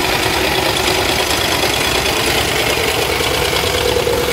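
John Deere two-cylinder tractor engine running steadily at low speed as the tractor drives slowly past close by.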